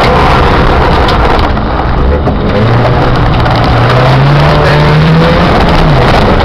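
Car engine heard from inside the cabin, its pitch climbing steadily as the car accelerates, then falling away about six seconds in. Under it is a loud, steady rumble of tyres and body on a rough, broken track.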